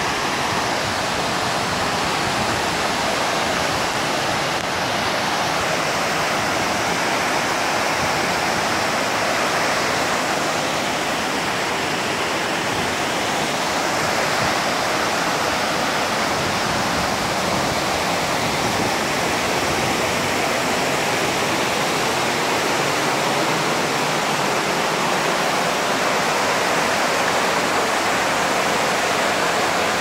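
Tortum Waterfall and the white-water cascades below it, rushing over rocks: a loud, steady rush of falling and tumbling water.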